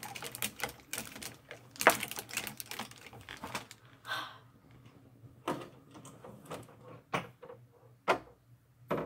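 Clothes hangers clicking and clacking as clothes are pushed along a closet rod: a quick run of clicks over the first few seconds, then scattered single clicks.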